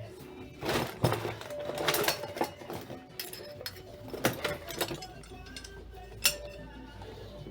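Metal clinks and knocks from tools and parts being handled during washing machine transmission work: half a dozen sharp, separate taps a second or so apart, with faint music underneath.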